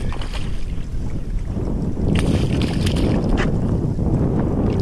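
Wind buffeting the microphone in a steady low rumble, with a hooked fish thrashing and splashing at the water's surface beside the boat; several short, sharp splashes come between about two and three and a half seconds in.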